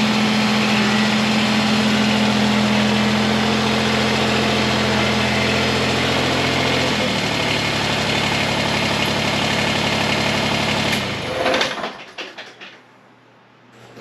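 Kubota BX23S tractor's three-cylinder diesel engine running steadily as the tractor is driven in. Its engine speed steps down about halfway through, and it shuts off about eleven seconds in, followed by a few light knocks.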